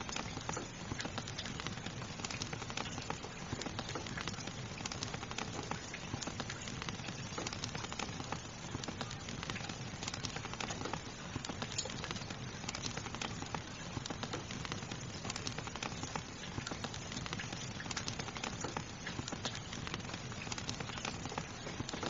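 Fire crackling with frequent small irregular pops over the steady hiss of falling rain.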